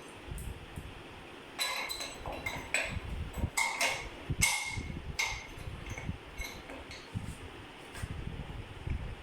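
Hard plastic clicking and knocking as reverse osmosis membrane housing end plugs and fittings are handled and locked in place: a quick cluster of sharp clicks with a short ring, thickest through the middle, over a low rumble.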